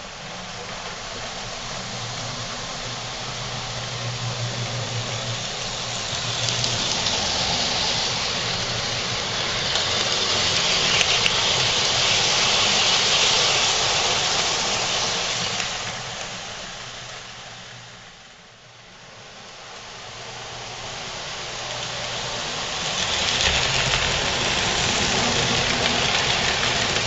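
O scale model trains rolling past close by on metal track: a rushing rumble that builds to its loudest about a dozen seconds in as a passenger train passes, fades to a low point a little after halfway, then builds again as a freight train comes by near the end.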